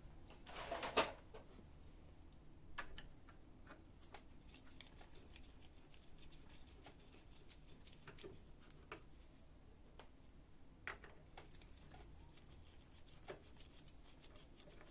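Small clicks and light scrapes of a screwdriver working screws out of a laser printer's side frame, with a brief scraping rustle about a second in.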